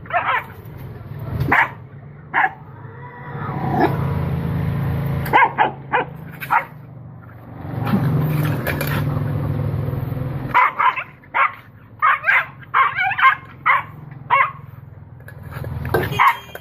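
Dog barking in short, separate barks, then a quick run of many barks in the last few seconds. A low steady hum rises and falls underneath twice.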